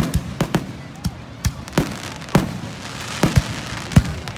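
Aerial fireworks exploding: a quick, irregular string of about ten sharp bangs, some in close pairs, with a crackling hiss about three seconds in.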